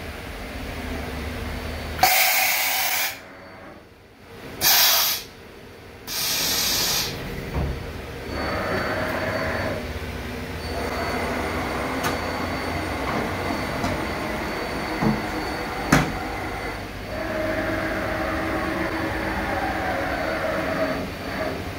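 Yang SMV-1000 CNC vertical machining center under power: three short, loud blasts of compressed-air hiss in the first seven seconds, then a steady machine whir with faint tones. A couple of sharp clicks come midway, and near the end the tones slide down in pitch.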